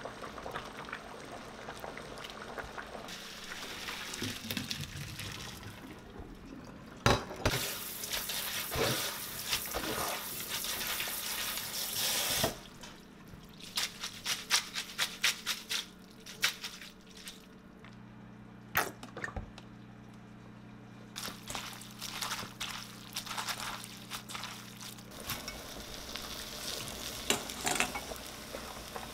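A pot of boiled flat glass noodles is poured into a metal strainer in the sink, with a rush of water about seven seconds in. The strainer is then shaken in a run of sharp knocks to drain the noodles.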